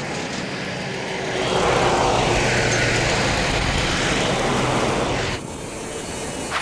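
A motor vehicle passing close by: a loud rush of engine and tyre noise that swells after about a second and a half and drops away suddenly about five seconds in.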